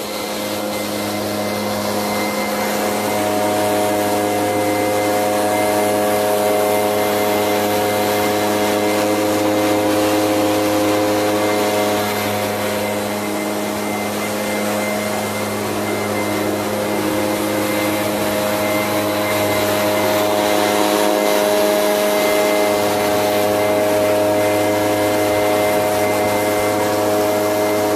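A steady machine hum, a low drone with several higher tones above it, dipping slightly in the middle.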